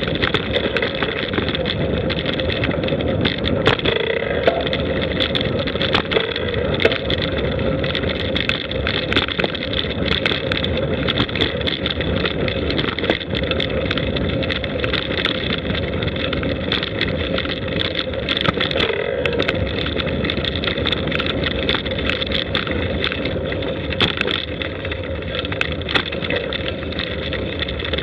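Steady rolling rumble and wind noise from a camera riding along a gravel forest track, with frequent small knocks and rattles from bumps in the surface.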